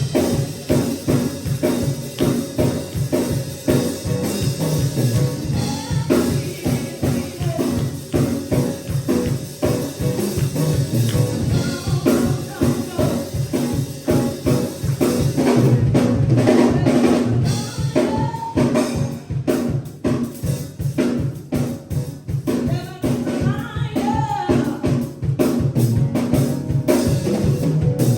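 Gospel praise music: singing over a drum kit keeping a steady beat.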